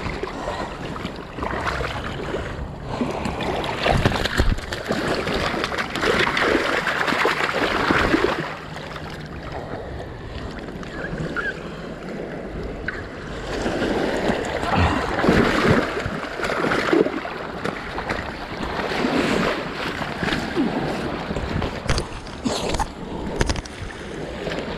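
Small waves washing onto a rocky gravel shoreline, rising and falling in surges, with wind buffeting the microphone; a few sharp clicks near the end.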